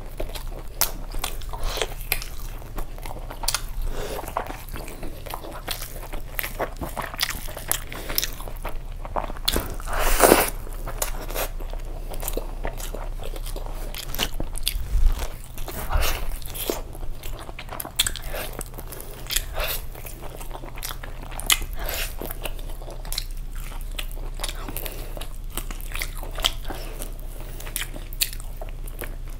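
Close-miked eating sounds of a man biting and chewing meat off a sauce-coated chicken drumstick: irregular short clicks and crunches of chewing, the loudest about a third of the way in.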